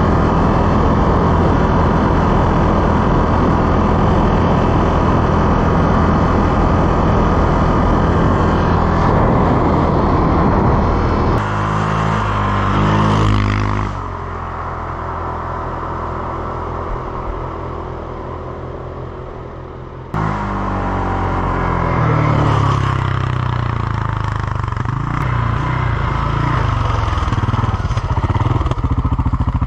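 CFMOTO CForce 600 ATV's single-cylinder engine running steadily under way on a gravel trail. About 14 seconds in it drops in level, then swells again as the ATV comes up and passes close by near the end.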